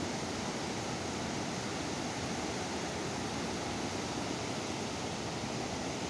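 Steady rushing noise of a swollen, silt-laden river running fast over rapids and boulders.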